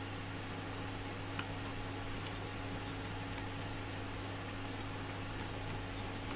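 Faint clicks and light taps of 3D-printed plastic parts and wiring being handled and fitted together, one tap a little louder about a second and a half in, over a steady low electrical hum.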